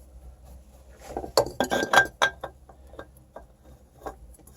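Light metallic clinks and taps from a new spin-on oil filter being handled and brought up to the engine's filter mount. A quick cluster of them comes a little over a second in, with one short ring, then a few faint ticks.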